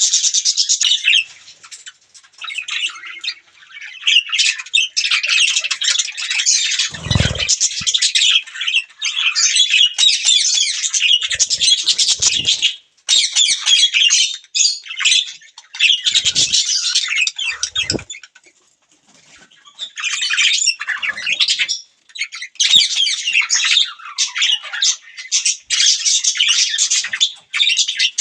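Budgerigars chattering, a dense run of fast, warbling chirps and squawks that breaks off briefly twice, with a few dull low thumps in between.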